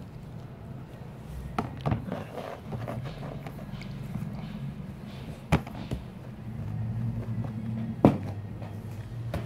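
About four sharp knocks against a cardboard box and a plastic laundry basket, the loudest two about halfway through and near the end, over a low steady hum.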